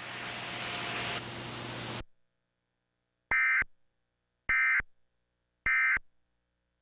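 Emergency Alert System end-of-message: three short bursts of warbling SAME data tones, about a second apart, marking the end of the alert. Before them, a steady hiss cuts off about two seconds in.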